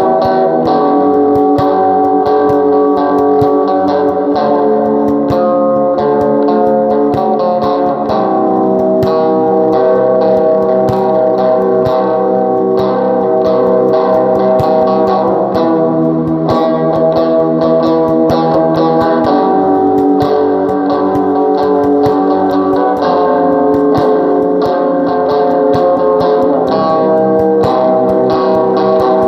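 Guitar music: plucked, ringing guitar notes and chords played steadily.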